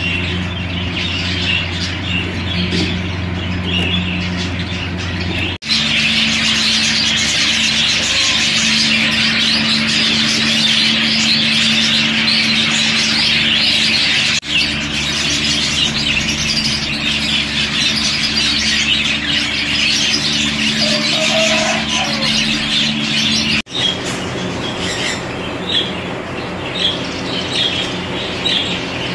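Exhibition budgerigars chattering, a dense run of warbles, chirps and squawks from several birds, with a steady low hum beneath. It breaks off for an instant three times.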